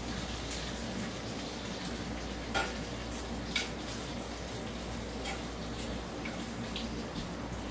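Browned ground beef sizzling in a skillet as a draining spoon stirs and dips it out, with two sharp clinks of the spoon against the pan a second apart near the middle.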